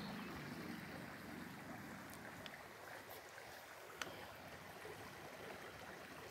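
Faint steady rush of a shallow creek, with a single sharp click about four seconds in.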